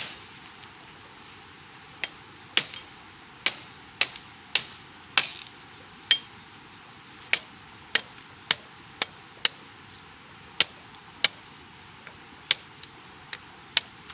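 About twenty sharp chopping or knocking strikes at irregular intervals, roughly one every half second to second, each with a brief ringing tail.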